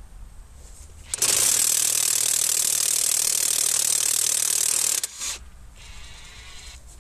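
Draper Expert XP20 20 V brushless 3/4-inch cordless impact wrench hammering steadily on a long-seized tractor wheel nut for nearly four seconds, starting about a second in, then a brief second burst; the nut breaks loose.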